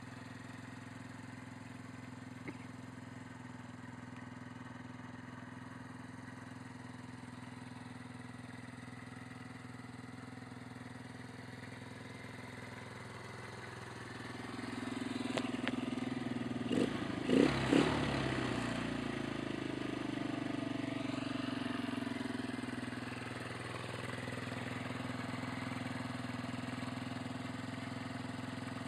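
2006 Superbyke RFX50 50cc motorbike engine idling steadily. About halfway through it is revved up, with two sharp throttle blips, and the revs then fall away and it settles back to a steady idle.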